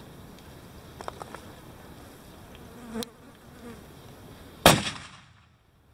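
A single muzzleloader rifle shot about three-quarters of the way through: one very loud, sharp report with a short ringing tail that dies away quickly. Before it, a few faint clicks and ticks over a low steady background.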